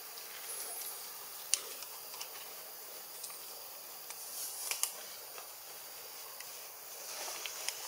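Steady high hiss of outdoor background ambience with a few sharp clicks and ticks, the loudest about a second and a half in and again near five seconds.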